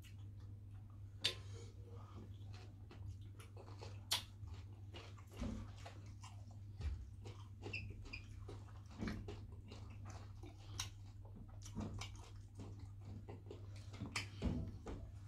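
Close-miked eating sounds: lips smacking, chewing and fingers being sucked, heard as scattered sharp wet clicks, the loudest about a second in, about four seconds in and near the end. A steady low hum runs underneath.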